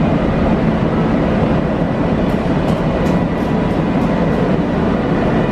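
Passenger train pulling out of the platform behind a WAP-7 electric locomotive, a steady rumble with a few faint wheel clicks in the middle.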